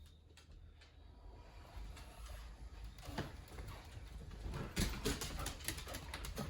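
Wheelchair rolling out through a doorway onto a ramp: a low rumble with a few knocks and bumps, the loudest about 5 s in.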